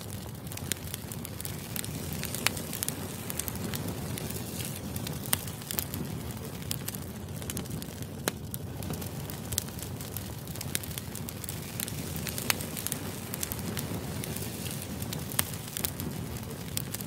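Wood campfire burning, with a steady hiss and irregular sharp crackles and pops from the logs.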